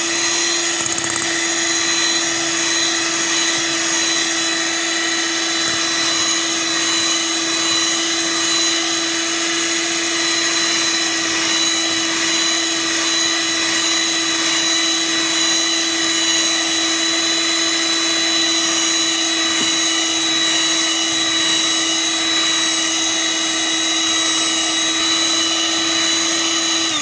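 Electric hand mixer running at a steady speed, its twin beaters whipping eggs and sugar into a thick, fluffy sponge cake batter. The motor hum holds one steady pitch, then winds down with a falling pitch as it is switched off at the end.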